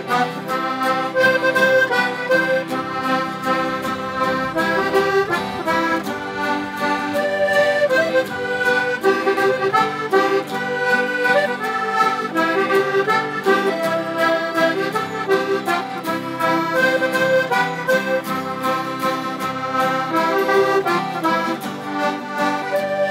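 Instrumental break of a traditional folk song: an accordion plays the melody over strummed acoustic guitars and a mandolin.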